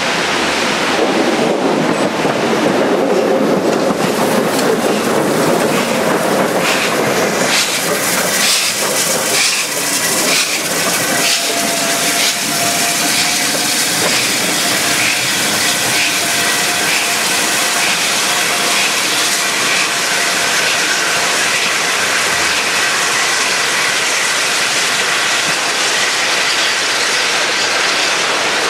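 Steam railmotor no. 93 and two steam locomotives passing close by, with the wheels clicking over the rail joints, over the steady rush of a weir. From about twelve seconds in, a steady high wheel squeal runs on as the train draws away.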